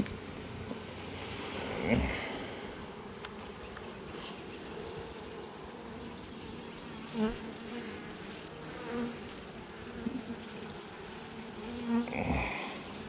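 Honey bees buzzing steadily around an open hive during a frame inspection, swelling louder a few times.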